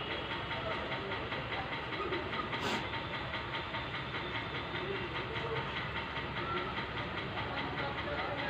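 Steady background hiss with a faint fast flutter running through it, and a brief soft burst of noise about two and a half seconds in.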